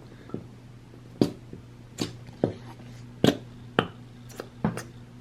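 White glue squeezed from its bottle: about nine sharp, irregularly spaced clicks and squelches, over a steady low hum.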